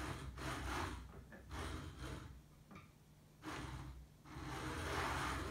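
A man breathing heavily a few times, about four soft breaths, over a faint steady low hum.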